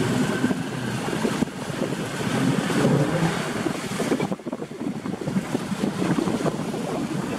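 Small boat under way on a Mercury outboard motor, running steadily, with wind buffeting the microphone and water rushing past the hull.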